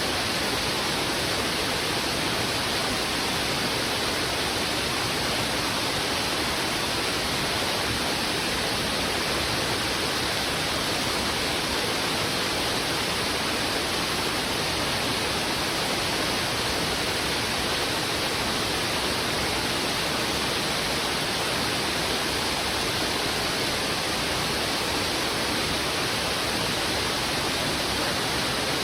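Fast, heavy river water rushing steadily, an even hiss with no splashes or changes standing out.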